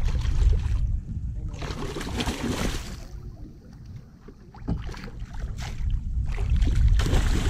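Low wind rumble on the microphone, with a splashing burst about two seconds in as a hooked black drum thrashes at the surface beside the kayak.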